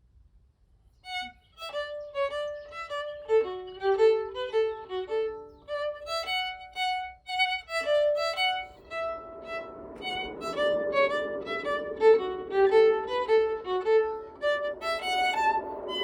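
Violin playing live, starting about a second in with a quick run of short notes. From about halfway through the notes sound over a fuller, sustained bowed layer.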